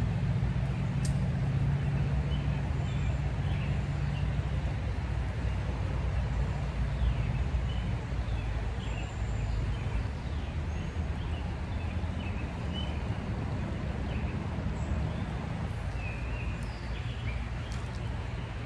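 Steady rush of a shallow river flowing over rocks, with a low rumble under it and scattered short bird chirps.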